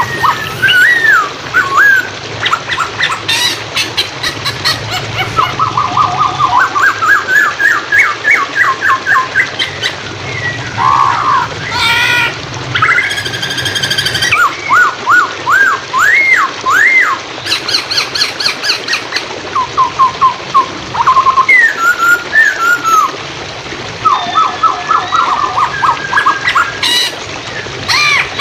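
A poksay hongkong laughingthrush singing loud, varied whistled phrases: fast runs of repeated notes, up-and-down slurred whistles and short trills. Flowing water runs steadily underneath.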